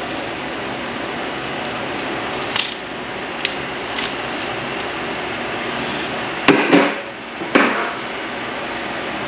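Metal brake pad hardware clicking and knocking as it is handled and fitted at the caliper bracket: a few light clicks, then two louder knocks about two thirds of the way in. A fan runs steadily underneath.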